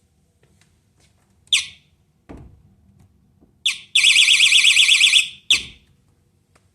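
Battery-powered magnetic door alarm going off: short high chirps, then a loud, fast-warbling alarm tone for about a second, cut off with another chirp. Two dull thumps of the door moving are heard in between.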